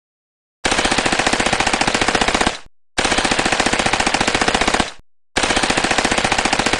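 Uzi submachine gun firing on full automatic, as a timer's alarm sounding at the end of the countdown. Three long bursts of about two seconds each, with short pauses between, at roughly ten shots a second. The first starts about half a second in.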